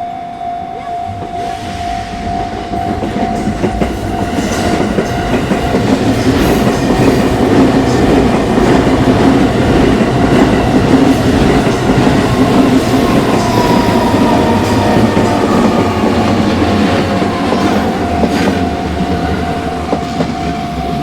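A train passing over a level crossing while the crossing's warning bell rings without pause. The running noise builds over several seconds and eases off toward the end, with scattered clacks of wheels over rail joints and a whine that falls in pitch about halfway through.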